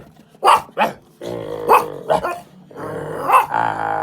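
A pet dog vocalizing on cue: drawn-out growly grumbling broken by about five short, sharp barks.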